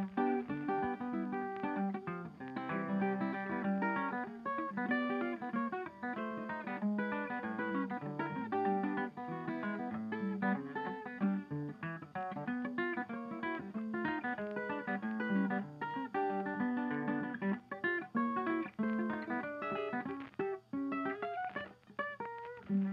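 Background music: an acoustic guitar picking a quick, continuous run of notes.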